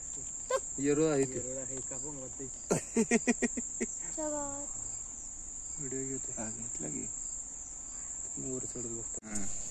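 Steady high-pitched trill of insects, unbroken throughout, with low human voices coming and going underneath.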